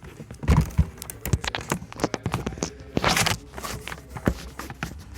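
Handling noise from close-up fiddling with objects: a run of irregular clicks and knocks, with heavy thumps about half a second in and a rustling scrape around three seconds in.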